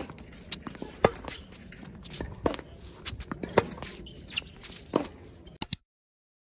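Tennis rally on a hard court: sharp pops of the ball coming off racket strings and bouncing, a few seconds apart, with shuffling footsteps between them. The sound cuts off abruptly into silence near the end.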